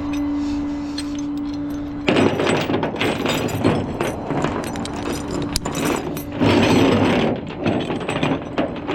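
Rattling and clanking of metal tow hooks and chain being handled, starting about two seconds in and loudest for about a second past the middle, over a steady hum.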